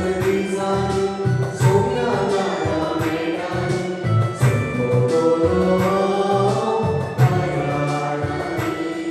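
A choir singing a devotional Christian hymn with instrumental backing and a steady beat.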